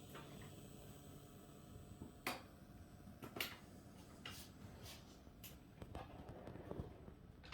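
Faint steady hiss and hum from a KRK Rokit RP7 G4 studio monitor, with a thin high whine. Several sharp clicks stand out over it between about two and five and a half seconds in.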